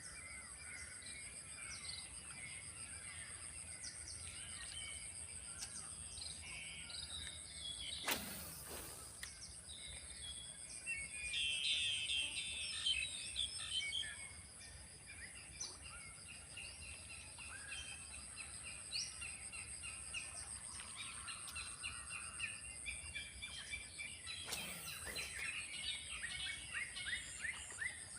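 Outdoor ambience of many small birds chirping and calling, over a steady high-pitched hum. Two brief whooshes cut across it, about eight seconds in and again near the end.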